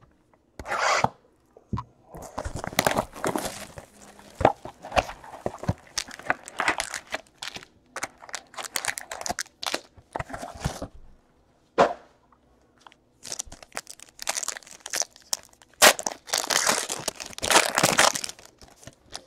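Trading-card box and a foil card pack handled and torn open by hand: irregular crinkling, crunching and tearing with sharp clicks. There is a short lull around the middle and a long, loud crinkling tear near the end as the foil wrapper is ripped open.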